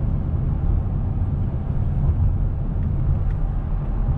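Steady road and engine noise inside the cabin of a vehicle driving at highway speed. It is mostly low-pitched and holds an even level throughout.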